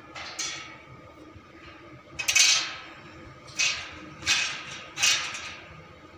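A hammer striking the steel of a spiral staircase: about six blows, each with a short metallic ring, the loudest a quick pair about two seconds in.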